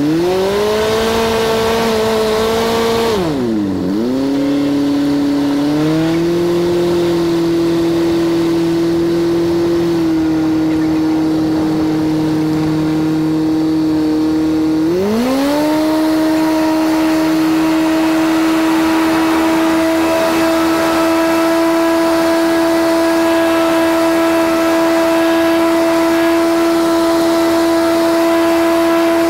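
Cessna 152's four-cylinder Lycoming piston engine and propeller heard from inside the cabin. Engine speed rises at first, dips sharply about three seconds in and settles again. At about fifteen seconds it climbs to full power for the takeoff roll and holds a steady drone through the climb-out.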